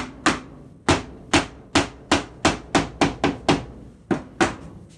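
Hammer blows on a timber wall frame, knocking a plywood-sheeted wall panel into a tight fit: about a dozen sharp strikes, quickening to about four a second in the middle, then slowing near the end.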